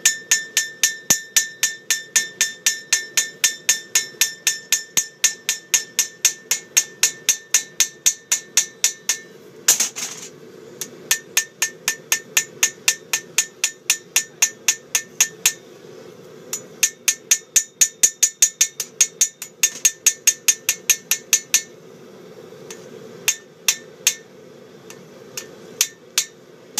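Blacksmith's hammer forging a hot knife blade on an anvil: long runs of regular blows, about three a second, each ringing with a high metallic note. There are short pauses about ten and sixteen seconds in, and only a few scattered blows near the end.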